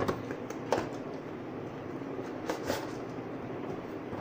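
Cardboard and paper being handled by hand: a few short scrapes and taps, the clearest near the start and about two and a half seconds in, as the router's retail box and its card insert are moved and opened. A steady low hum runs underneath.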